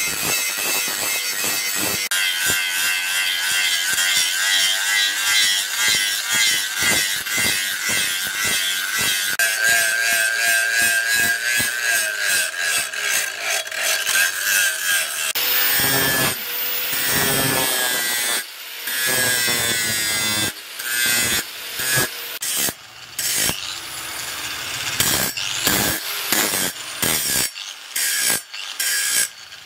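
Electric angle grinder with an abrasive disc grinding a steel knife blank: a high steady whine over the rasp of the disc on the metal. In the second half the disc is lifted and pressed back again and again, so the grinding breaks off and returns in short spells.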